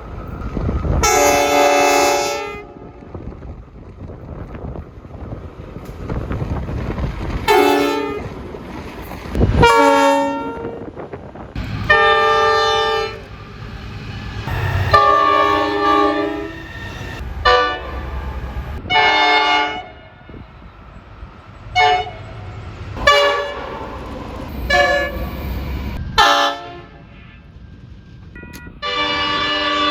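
Train horns sounding about a dozen separate blasts, some short toots and some held for a second or two, each a multi-tone chord. Beneath them runs the low rumble of trains moving.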